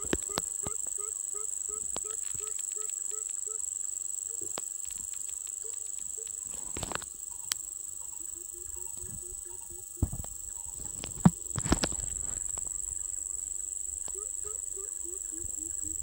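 Coucal (bubut) calling: runs of deep, quick hoots, about four a second, in several separate series. A steady high insect buzz runs underneath, and a few knocks and thumps come near the middle.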